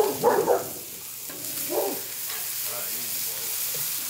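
Swordfish steaks sizzling in oil on a hot flat-top griddle, with a metal spatula working under them. A dog barks a few short times in the first two seconds.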